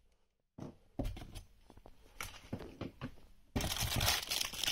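Plastic packaging wrap and cardboard box flaps rustling and crinkling as hands rummage in the box and pull out a plastic-wrapped foam bottle. The crinkling is sparse at first and becomes loud and dense about three and a half seconds in.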